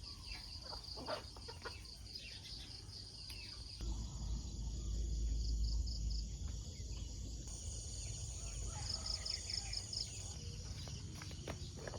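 Crickets chirping in quick pulses, with occasional short chicken clucks. A low rumble swells from about four seconds in and drops away a few seconds later.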